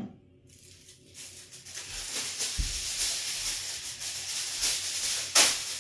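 Aluminium foil being pulled off the roll and handled, a dry crinkling rustle that starts about half a second in and grows, with one sharp, louder crackle near the end.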